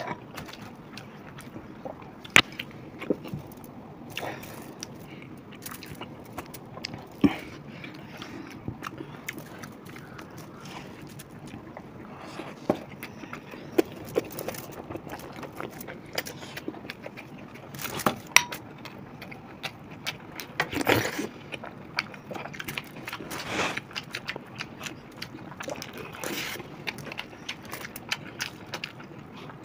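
Close-up eating sounds of people eating chicken and egg biryani by hand: chewing and mouth sounds, with many short sharp clicks and taps and a few louder clatters past the middle.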